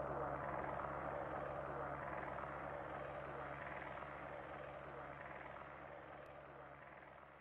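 Steady rushing roar of whitewater and a waterfall, with a low hum under it, gradually fading away to near silence by the end.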